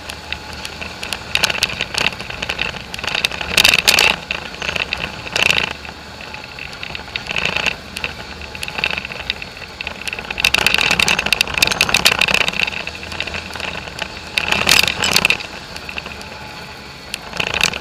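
Polaris off-road vehicle driving over a rough, rutted dirt trail: the engine runs underneath a constant rattle and clatter of the body and windshield, with louder bursts of clattering every few seconds as it jolts over bumps.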